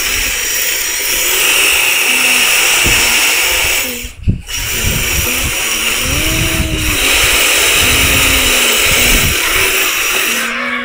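Motor and gear drivetrain of a six-wheeled RC rock crawler running, a steady whirring whine that rises and falls in pitch now and then. It cuts out briefly with a knock about four seconds in, then runs on.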